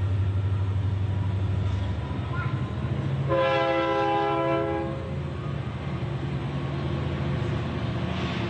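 A loud horn sounds once for about a second and a half over a steady low mechanical hum.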